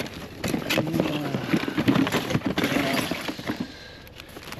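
Gloved hands rummaging through a cardboard box of household junk: plastic rustling and items knocking and clattering as they are moved and pulled out.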